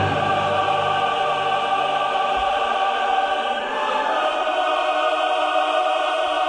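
Choral music: a choir holding long sustained chords, the chord changing about four seconds in.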